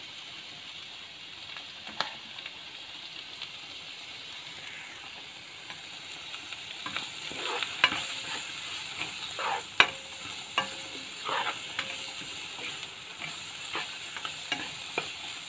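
Sliced onions sizzling in hot oil in a frying pan as they are stir-fried. From about seven seconds in, a spatula scrapes and knocks against the pan as it turns them.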